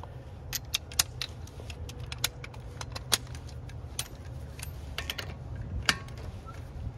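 Scattered metallic clinks and rattles of a torque wrench and its socket being handled and fitted onto a wheel's lug nut, over a steady low rumble.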